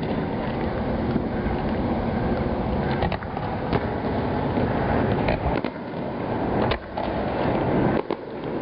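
Aerial firework shells bursting overhead: several sharp bangs a second or two apart, starting about three seconds in, over a steady low rumble.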